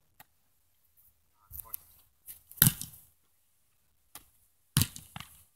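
Football being thrown and caught between the coach's hands and a goalkeeper's gloves: a few sharp slaps spread out, the loudest about halfway through and a quick pair near the end.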